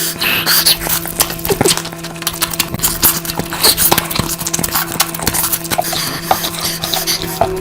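Close-miked eating sounds: fast, wet chewing and mouth smacks with clicks of food being handled, over a steady low hum.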